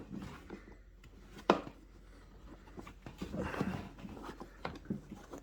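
Craftsman rolling toolbox being handled: a single sharp click about a second and a half in, then soft rustling and light knocks as a storage compartment is opened and shown.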